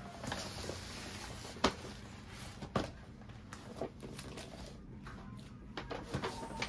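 Paper shopping bag rustling as a shrink-wrapped laptop box is slid out of it onto a desk, with a few sharp taps and knocks from the box and bag being handled.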